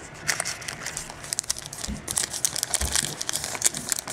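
Foil wrapper of a football trading card pack crinkling and crackling in the hands as it is torn open.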